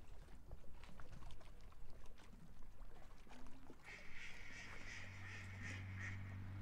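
Footsteps and scattered knocks on a decked marina pier. About four seconds in, an animal's rapid run of high, pulsed calls begins and lasts about two seconds. Near the end a low, steady motor hum sets in.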